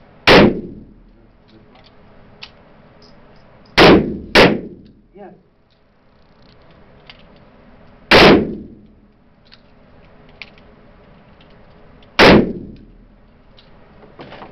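Five revolver shots, .38 Special or .357 Magnum rounds, echoing in an enclosed indoor range. The first shot comes alone, then a quick pair about half a second apart, then two more single shots about four seconds apart.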